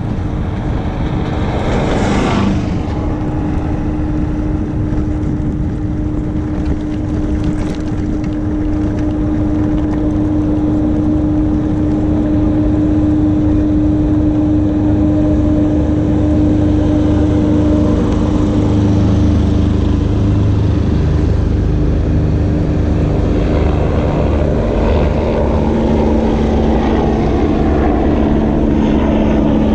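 Electric motor of an Attitude wheelchair-bike attachment humming steadily under way, over a low rumble of wind and road noise. A brief rushing noise comes about two seconds in, and a second, lower hum joins about two-thirds of the way through.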